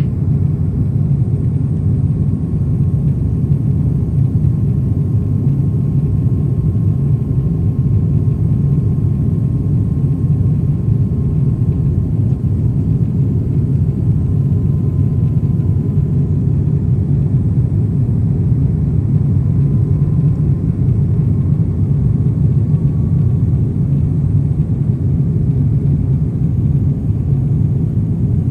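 Steady low rumble of airliner cabin noise, engines and airflow heard from inside the cabin, with a faint thin whine held above it.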